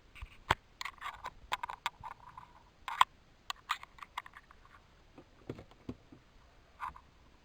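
Irregular plastic clicks and short rattles from a Lego Monster Fighters Mummy alarm clock being handled. The sharpest clicks come about half a second in and about three seconds in, with a busy clatter in between. Softer, duller knocks follow near the end.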